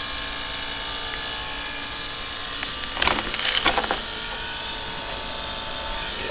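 A steady mechanical hum made of several held tones, like a running motor, with a burst of clattering about three seconds in.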